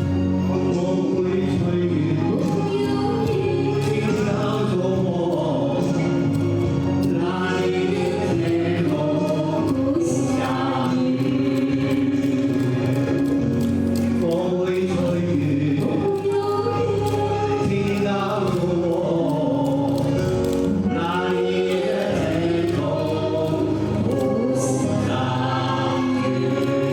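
Voices singing a song over an instrumental backing track, the melody running steadily throughout.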